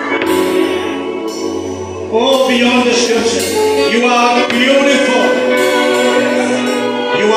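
Gospel music with singing. It gets louder about two seconds in.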